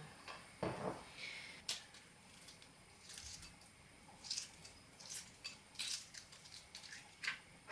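Hard-boiled eggs being shelled by hand: irregular small cracks and crackles of eggshell breaking and peeling away.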